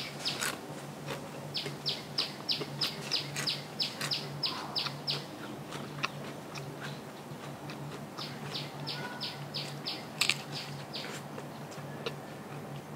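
A bird calling in two runs of short, high chirps, about four a second, each run lasting a few seconds, over a faint steady hum.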